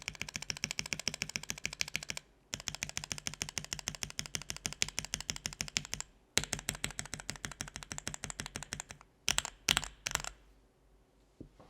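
Lubed linear mechanical keyboard switches, on a keyboard with a polycarbonate plate and GMK keycaps, clacking in fast runs of keystrokes of about ten a second. The runs break off twice briefly. Near the end come a few separate loud strokes, and then the clacking stops.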